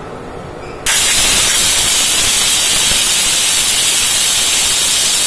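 Pressure cooker's first whistle: steam blasts out through the weight valve as a loud, steady hiss that starts suddenly about a second in, spitting lentil froth around the weight. The cooker has come up to full pressure.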